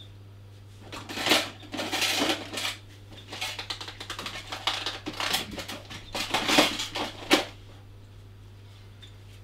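Small hard objects clattering and rattling as storage bins on a metal shelf are rummaged through. It starts about a second in and stops near the end, over a steady low hum.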